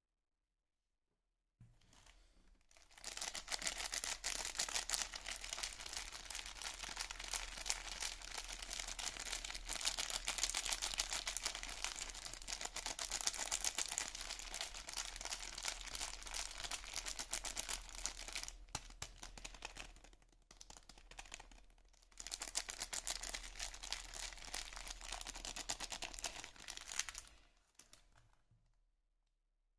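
Soap packaging being unwrapped by hand: dense crinkling and tearing of the wrapper, with a short lull past the middle before it picks up again.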